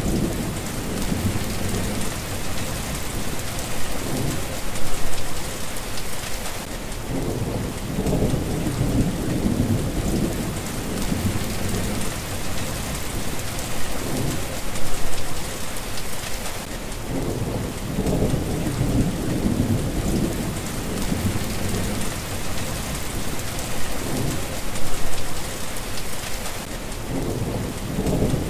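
Steady rain pattering down, with thunder rumbling low over and over; the loudest swells come about every ten seconds.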